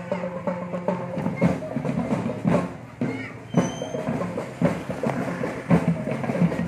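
Marching band music: drums beating a regular rhythm under sustained melody notes.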